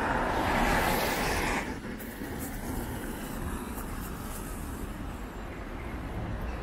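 Road traffic on a wet street: a loud hiss of tyres on wet paving from a passing vehicle that drops away sharply a little under two seconds in, followed by a steady low engine rumble from vehicles moving slowly nearby.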